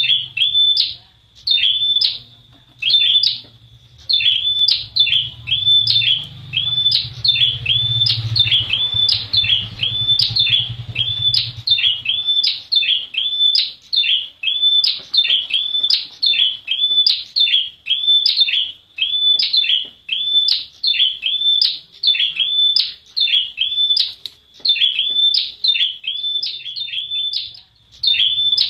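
Prenjak wulung, a prinia, calling over and over: a steady run of short, sharp, high notes, each dropping a little in pitch, about two a second.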